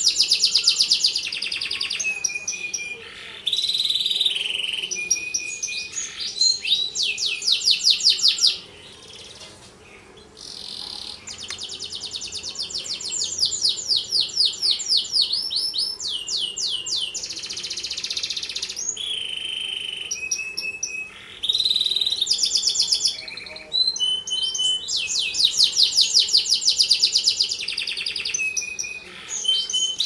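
Domestic canary singing a long song of fast repeated trills and rolls, switching from one trill to another every second or two, with a brief pause about nine seconds in.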